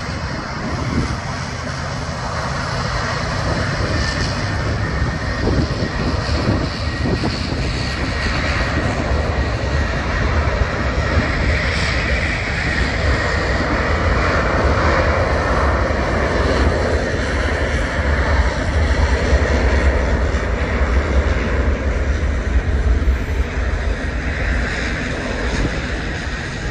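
Boeing 737-800 with two CFM56-7B turbofans at take-off thrust: a steady, loud jet noise as the airliner accelerates down the runway, swelling a little toward the middle and easing slightly near the end.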